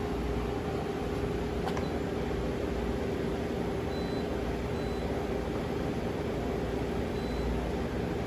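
Okuma GP-26W CNC cylindrical grinder running with its wheel spindle turning: a steady machine hum with a constant mid-pitched tone, and a single light tick about two seconds in.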